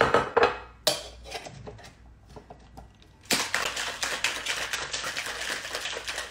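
A few sharp knocks, then from about three seconds in a fast, continuous rattle of ice shaken in a cocktail shaker.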